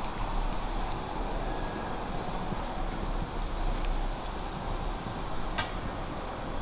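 Steady outdoor background noise, a low rumble and hiss, with a few faint sharp clicks.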